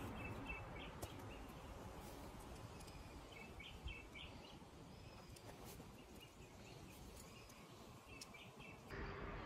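Faint outdoor background noise with birds chirping now and then, and a couple of light clicks.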